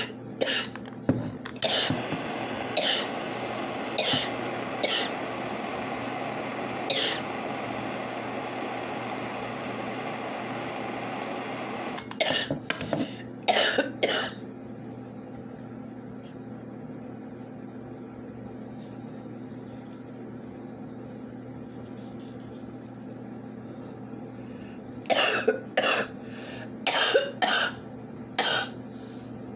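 A person coughs hard in repeated fits, the harsh coughing that follows a hit of cannabis wax concentrate. Several coughs come in the first fourteen seconds over a steady hiss that stops about twelve seconds in. After a pause of about ten seconds, a fresh run of coughs starts near the end.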